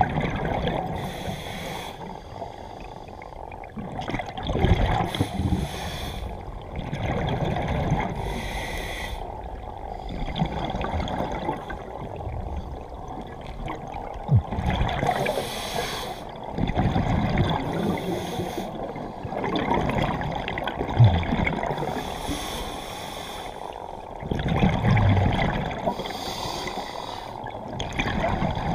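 Scuba diver breathing through a regulator underwater: exhaled bubbles gurgle out in bursts every few seconds between quieter inhalations, over a low rumble of moving water, with a few short knocks.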